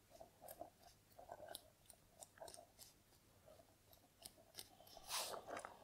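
Near silence with faint, irregular rustling and small clicks from hands pressing and rubbing the base of the toes in a self-massage. A slightly louder rustle comes about five seconds in.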